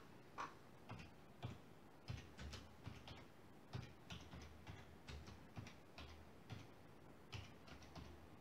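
Faint, slow keystrokes on a computer keyboard, one key at a time, as a short command is typed out.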